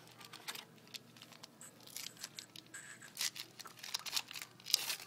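A trading-card pack wrapper being torn open and crinkled by hand: a run of short, scratchy rips and rustles, loudest near the end.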